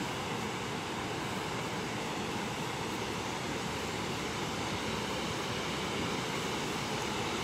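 Steady rushing of river water pouring over a low weir, an even hiss with no changes.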